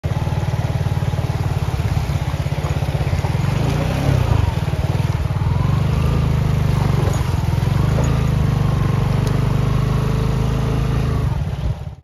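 Suzuki motorcycle engine running steadily with a low, even throb as the bike rides through a shallow stream; the sound cuts off just before the end.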